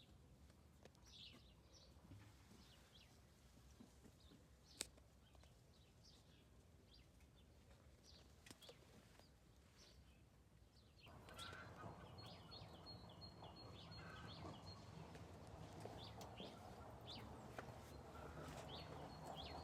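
Faint outdoor ambience with small birds chirping, a single sharp click about five seconds in, and a steady hiss and rumble that comes in about eleven seconds in, with a rapid trilling note running over it.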